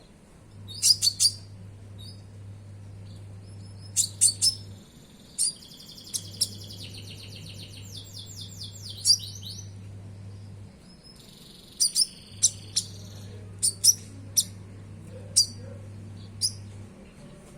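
A konin songbird singing: sharp high chirps and several rapid trilled phrases. Under the song there is a low hum that cuts in and out a few times.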